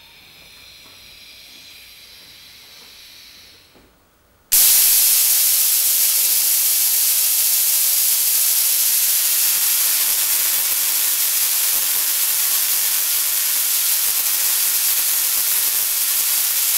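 Homemade Tesla coil switched on about four and a half seconds in, after faint room noise: its sparks make a loud, steady hiss that starts suddenly and keeps going.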